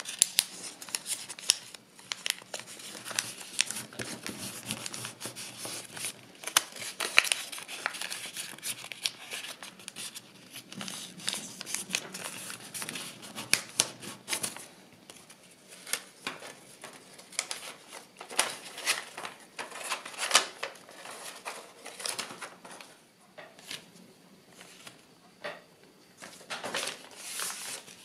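Kraft paper crinkling and crackling as it is folded and creased by hand: dense, irregular crackles that thin out for a few seconds near the end.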